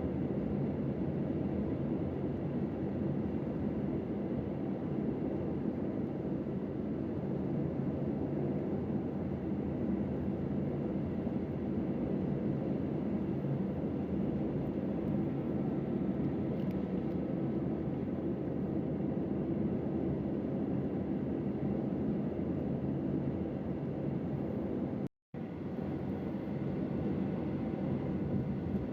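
Steady engine and road noise inside a camper van's cabin while driving, a low even drone that breaks off for an instant near the end.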